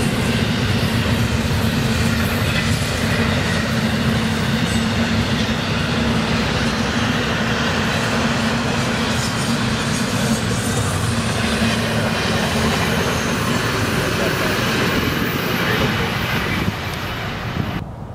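Florida East Coast Railway intermodal freight train rolling past close by: a steady, loud noise of steel wheels running on the rails under container and trailer cars. The noise drops away suddenly about a second before the end.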